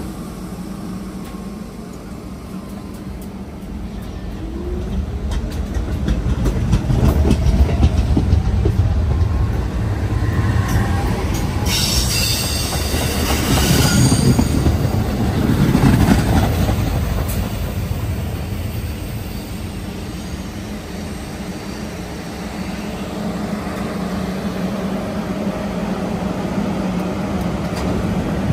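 Staten Island Railway subway train moving along the station platform: a steady low rumble of wheels on rail that builds a few seconds in, with a short rising motor whine. About halfway through comes a loud, high wheel squeal lasting a few seconds.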